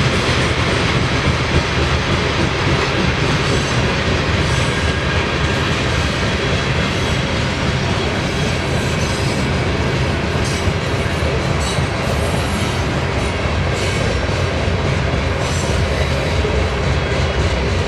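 Freight cars of a grain train rolling past close by: a loud, steady rumble of steel wheels on rail with clickety-clack and thin, intermittent wheel squeal.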